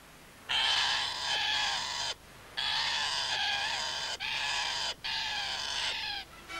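Macaws calling: four long, harsh squawks, one after another, with brief breaks between them.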